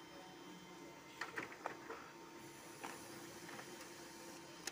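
Canon imageCLASS MF244DW laser printer running a duplex engine test print: a faint steady mechanism hum with a few sharp clicks from the paper feed between one and three seconds in, and another click near the end.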